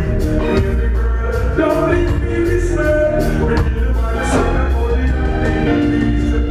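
Live reggae/dancehall band playing loudly, with heavy bass, a steady drumbeat and keyboard chords, and a voice singing over it.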